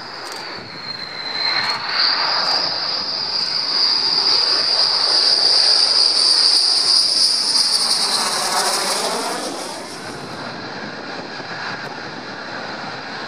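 F-15E Strike Eagle's twin jet engines on a low approach, a strong high whine over a rush that grows louder as the jet comes in overhead, then a sweeping whoosh as it passes. About three-quarters through, the whine cuts off abruptly, leaving a quieter steady jet rush.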